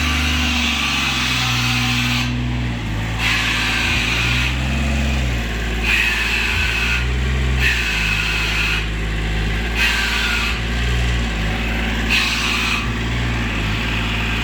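An engine-driven machine on a pipe-lining rig runs steadily, with its pitch shifting in a regular cycle about every second and a half. A hiss of air drops out briefly on each cycle.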